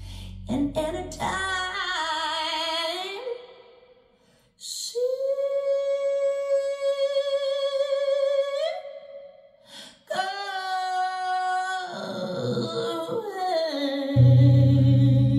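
Recorded music played over Focal Micro Utopia Be loudspeakers with a REL subwoofer in a small listening room: a solo female voice sings long held notes with vibrato, with two short breaks, and a deep bass line comes in near the end.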